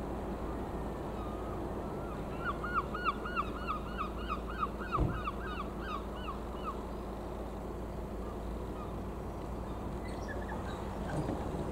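A bird calling a quick series of about fifteen calls, roughly three a second, over a steady low rumble.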